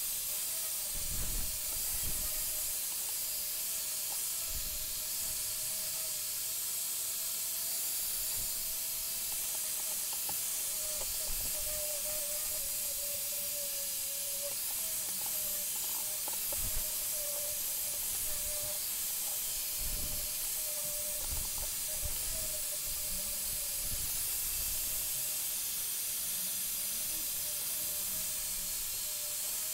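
Angle grinder with a wire brush attachment running steadily, a slightly wavering motor whine under a dense hiss, as the wire brush scours old muck off a steel shock absorber part to get it ready for paint. A few low knocks of the part being handled come through.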